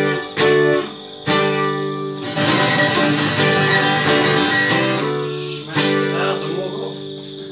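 Acoustic guitars strummed in chords. A few separate strokes come first, then a stretch of fast strumming, and a last chord rings out and fades near the end.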